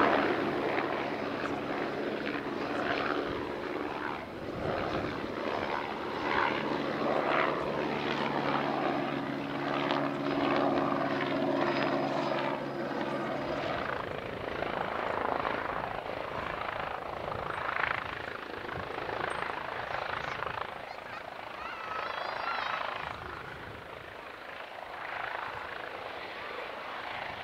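Supermarine Spitfire PR XI's Rolls-Royce Merlin V12 engine running as the aircraft flies past on approach: a steady drone through the first half, then rougher and quieter after about 14 seconds as the throttle comes back and the aircraft touches down and rolls out on the runway.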